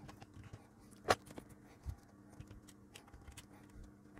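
Small clicks and knocks of a circuit board being turned over and set in a plastic PCB holder, with one sharper click about a second in and a duller knock a little later. A faint steady hum runs underneath.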